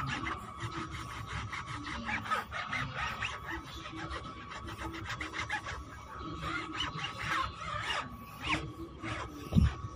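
Cloth rubbing on a car tyre and alloy wheel in quick repeated scraping strokes, wiping spray paint off. A steady high whine runs underneath, birdlike chirps come in during the second half, and a low thump sounds just before the end.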